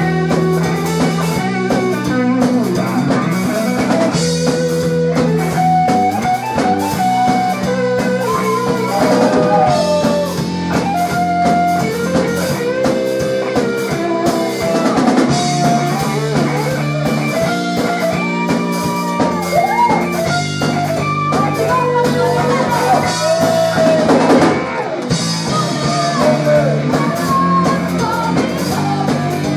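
Live rock band playing: electric guitar through Randall amplifiers, electric bass and drum kit, with a lead line that bends up and down in pitch through the middle.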